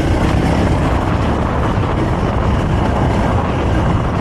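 Honda CRF300L's single-cylinder four-stroke engine running on its stock exhaust while the bike is ridden, mixed with a steady noisy rush.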